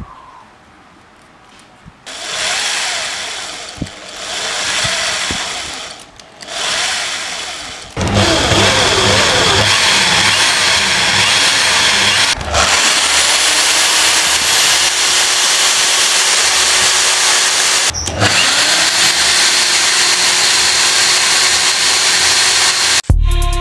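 Electric drill spinning the input shaft of a cardboard model truck rear axle, its bevel gears and bearings turning: three short runs, then a long run at full speed with a steady high whine, briefly cut off twice and spinning back up in pitch each time. Electronic music starts near the end.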